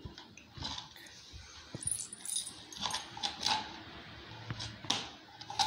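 Light clinks and taps as a toddler handles a plastic ice cream tub, with metal bangles jingling on her wrists.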